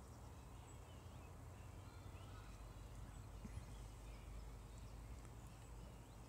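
Near silence: faint outdoor ambience, a low steady rumble with a few faint short chirps.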